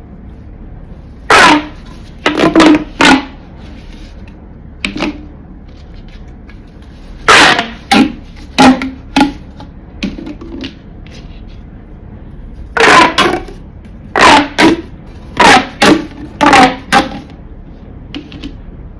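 Marbles clattering down a wooden marble run: loud, sharp clacks with a short ring, coming in several quick clusters of two to five.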